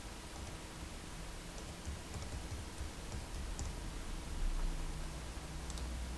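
Light, scattered clicks of a computer keyboard being typed on and a mouse being clicked, over a low background hum that grows louder about four and a half seconds in.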